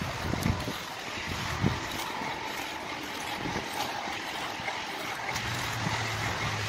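Steel knife spine scraping along a wooden hatchet handle, with a few short scrapes and light taps, over a steady background hum.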